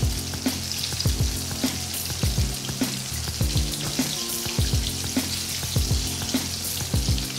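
Flour- and egg-coated chicken pieces deep-frying in hot oil in an iron kadai: a steady, busy sizzle and bubbling. Background music with a low bass line and a regular thudding beat plays underneath.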